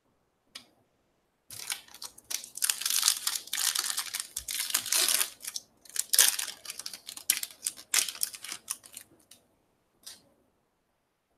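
Foil wrapper of a Topps Finest trading-card pack being torn open and crinkled by hand: a run of crackling tears and crinkles that starts about a second and a half in and goes on for around seven seconds.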